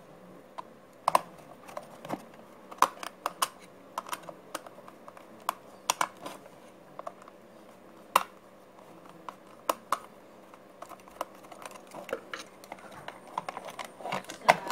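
Irregular sharp clicks and taps of a small screwdriver working the screws of a painted sheet-metal case, with knocks as the case is turned over in the hand.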